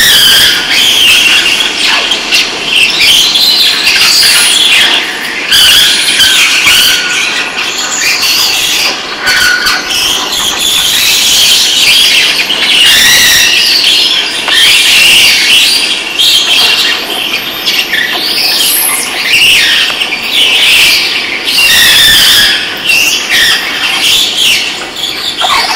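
A long continuous welded steel rail string dragged along the track by a diesel locomotive, the steel squealing with a high, wavering pitch that keeps shifting. Scattered sharp clicks sound through it.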